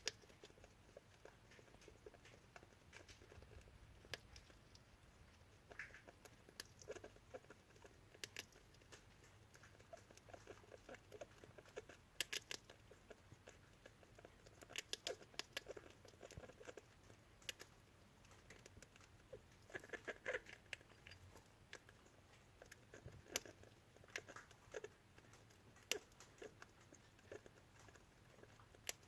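A degu eating and making weird noises: faint clusters of quick clicks from chewing come every few seconds, mixed with short odd sounds. The noises are a sign of an illness that a vet later treated with antibiotics.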